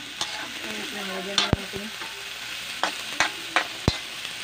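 Squash and string beans sizzling in a metal wok as a metal spatula stirs them. The spatula scrapes and clanks against the pan about seven times over the steady hiss of frying.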